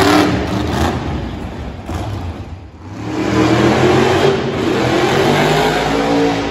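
Monster truck engine revving hard in two surges: a short one at the start and a longer, climbing one from about halfway in.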